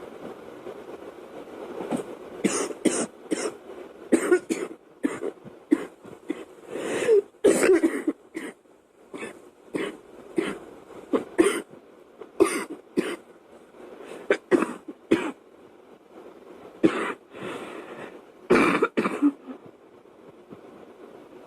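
A girl coughing over and over in short, sharp fits of two or three coughs with brief pauses between, starting about two seconds in and stopping shortly before the end.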